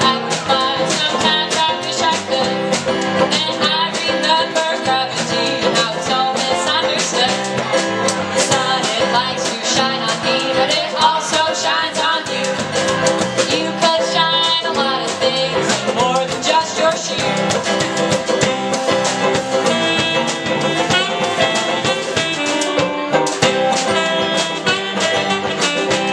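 A folk band playing an instrumental passage, led by plucked and strummed guitar.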